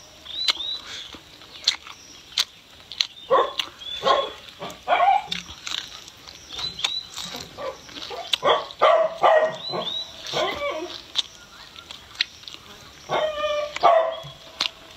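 A dog barking in short bursts several times, over close-up chewing and mouth sounds from someone eating.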